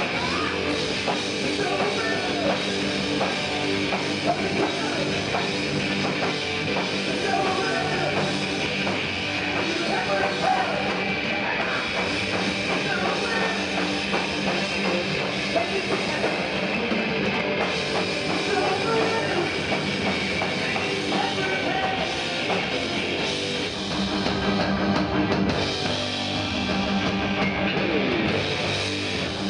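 Live glam rock band playing electric guitars over a drum kit.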